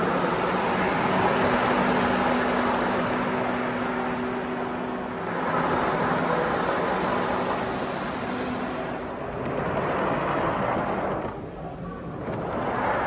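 Large-scale model diesel locomotive hauling hopper wagons along the layout track: a steady running noise with a low hum, which stops about nine and a half seconds in. A short lull follows before the noise picks up again.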